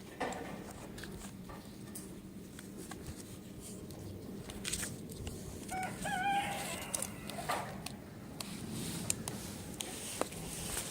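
A faint pitched animal call lasting about a second, some six seconds in, over quiet background with scattered light clicks and knocks.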